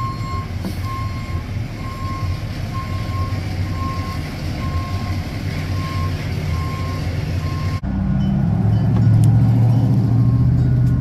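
A vehicle's reversing alarm beeping steadily, about one and a half beeps a second, over a low rumble. The beeps stop suddenly about eight seconds in, and a louder low rumble follows.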